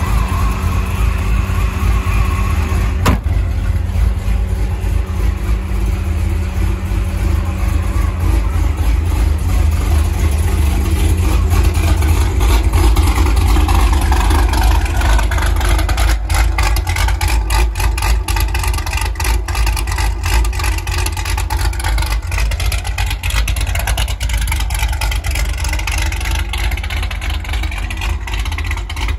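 Supercharged Chevrolet Camaro SS 6.2-litre V8 running at a steady, mostly idle speed with a deep low exhaust note, swelling slightly around the middle.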